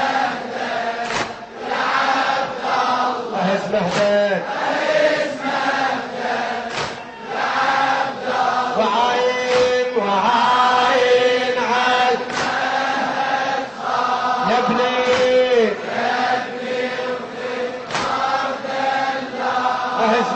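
A devotional chant: a voice singing long, held phrases that waver and slide in pitch, one after another.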